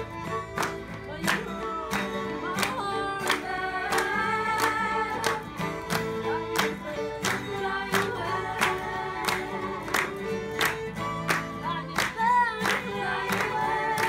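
Live acoustic guitar and fiddle playing a song, over a steady beat of sharp claps or strums about one and a half times a second.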